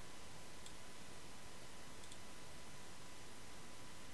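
A few faint computer mouse clicks, one about two thirds of a second in and a quick pair about two seconds in, over a steady low hiss.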